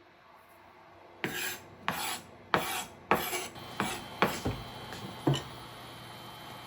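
A series of about seven short rasping, scraping strokes, roughly two a second, followed by a single knock.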